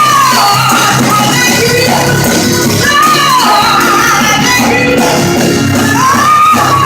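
A band playing loud, steady music with singing, the sung line rising and falling in arcs every few seconds.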